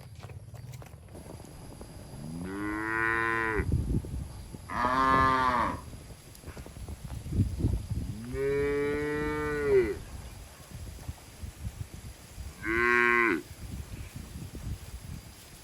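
Cattle mooing, four calls in turn: three long ones of about a second or more each, the first and third starting with a rise in pitch, then a short one near the end. An uneven low rumble lies underneath.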